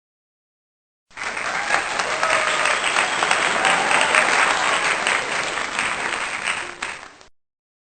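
Crowd applauding, a dense patter of many hand claps that starts suddenly about a second in and cuts off shortly before the end.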